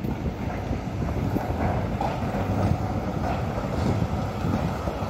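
Wind buffeting the microphone over the low rumble of an articulated tram rolling by on street track, rising gently as it comes closer.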